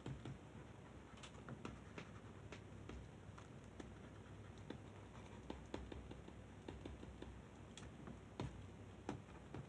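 Faint, irregular clicks of a computer mouse and keyboard over quiet room tone, several a second, as the burn tool is worked over an image.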